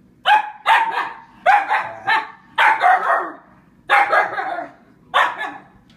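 A puppy barking repeatedly, about nine high, sharp barks, mostly in quick pairs.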